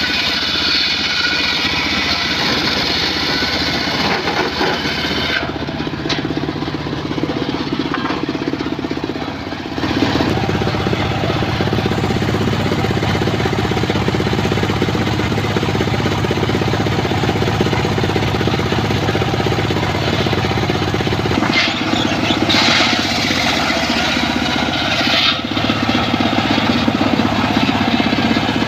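Circular saw running steadily, cutting wood for the first five seconds or so and again from about 22 seconds in, running more quietly between cuts.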